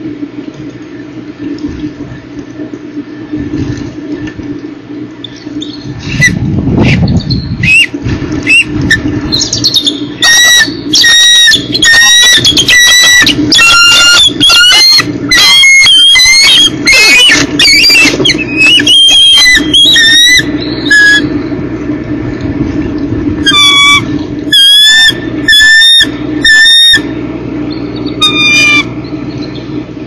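Eagles calling at the nest: a long series of short, loud, high piping calls that starts about six seconds in and runs in clusters until near the end, over a steady low hum.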